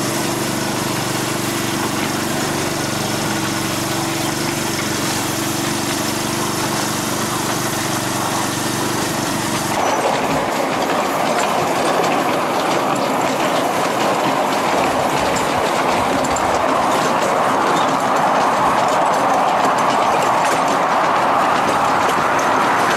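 A 7¼-inch gauge miniature steam train running on its track. For about the first ten seconds there is a steady hum with a few held tones. Then, heard from aboard the train, there is a steady rolling rush of wheels on rail with quick clicks from the rail joints, slowly growing louder.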